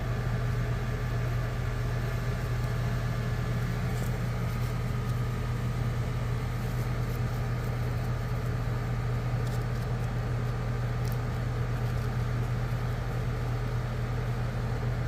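Steady low mechanical hum of a running motor, with a strong low drone and faint higher tones held even throughout. A few faint scuffs come over it as fingers brush soil over sown seeds.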